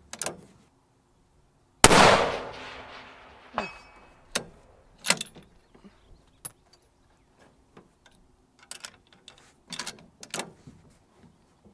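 A single shot from a Weatherby Mark V Carbonmark Elite bolt-action rifle in 6.5 Creedmoor about two seconds in, echoing as it fades. It is followed by a series of short clicks and clacks as the bolt is worked.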